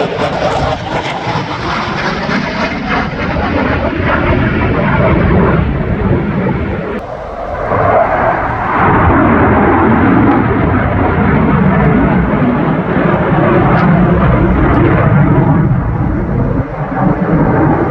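Jet noise from a Saab JAS 39 Gripen fighter's single turbofan engine as it flies its display: a loud, steady rush that dips briefly about seven seconds in, then builds again.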